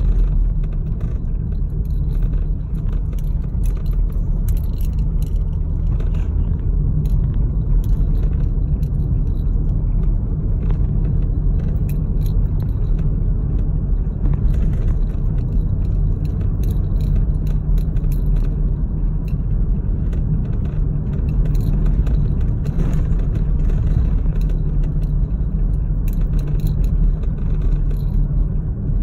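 Car cabin road noise while driving on a gravel road: a steady low rumble of tyres on gravel, with scattered light ticks throughout.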